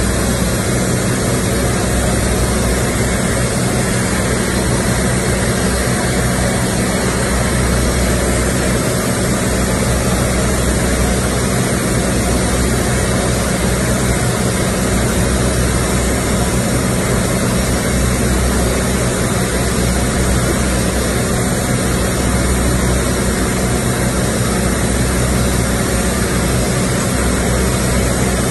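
Stick (shielded metal arc) welding on a large steel pipe's girth weld: the arc hisses and crackles steadily without a break. A steady engine hum runs underneath.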